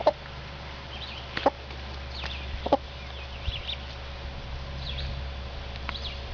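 A Partridge Cochin hen giving a few short clucks while her ducklings peep in high, quick clusters, over a steady low hum.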